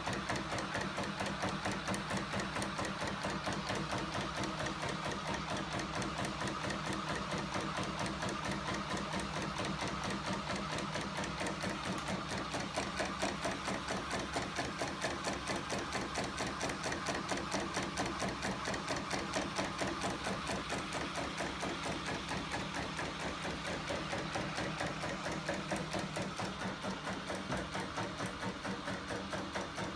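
Homemade electric-motor-driven crank and linkage mechanism with a flywheel running at a steady speed, its joints and arms clattering in a fast, even rhythm.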